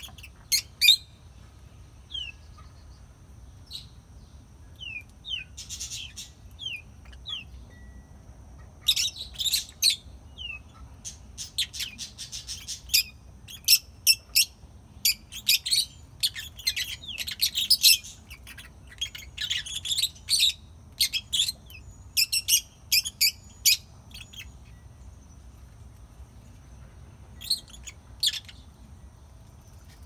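Peach-faced lovebirds chirping: a few scattered sharp calls at first, then a long run of rapid, shrill chirps through the middle, thinning out near the end.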